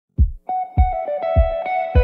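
Background music: a plucked melody over a low beat that thumps about every 0.6 seconds, starting a moment after a short silence.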